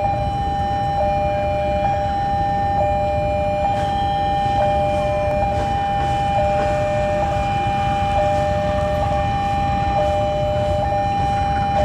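Electronic railway warning alarm: a steady high tone with a second, lower tone switching on and off about once a second. Under it, the low rumble of an approaching diesel-electric locomotive.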